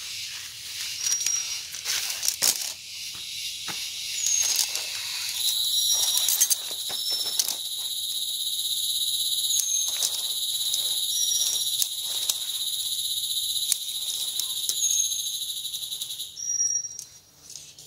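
Insect in a tropical forest calling with a steady, high-pitched buzz that starts about five seconds in and cuts off suddenly near the end. Short high chirps repeat every couple of seconds, with scattered clicks and knocks.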